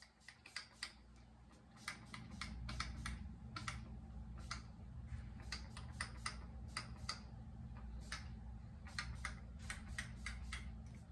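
A finger-pump spray bottle misting liquid onto a braided scalp in quick, short spritzes, two or three a second, over a steady low hum.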